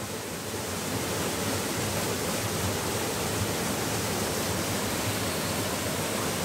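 Small forest waterfall pouring into a rocky pool, a steady rush of water that grows a little louder about a second in.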